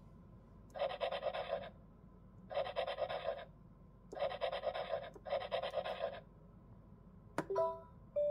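Four rasping scratch sounds, each about a second long, from the stylus drawing strokes on the screen of a VTech Professor Schreibfix learning computer in free-drawing mode. Near the end there is a sharp tap, then a short electronic beep from the toy as the finished drawing is confirmed.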